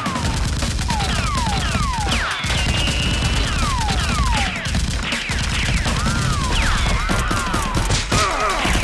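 Rapid gunfire sound effects, a dense run of shots without a break, with repeated high whistles falling in pitch, one after another.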